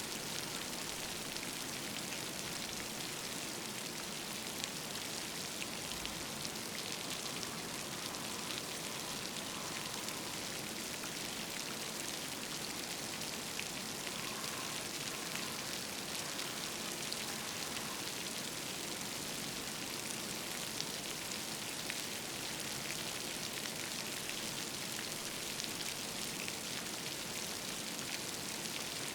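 Steady rain falling, an even hiss with many small drops pattering on surfaces.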